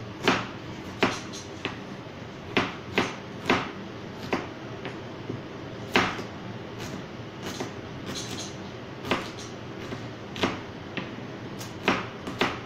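Kitchen knife cutting a red onion on a cutting board: sharp knocks of the blade on the board, unevenly spaced, roughly one a second.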